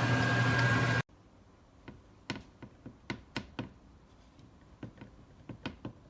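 A loud steady noise with a steady tone cuts off abruptly about a second in, followed by scattered, irregular light clicks and taps.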